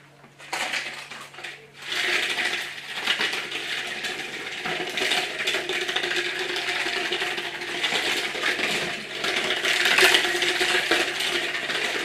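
A plastic water bottle crinkled and crackled by hand, starting about half a second in and going on without pause.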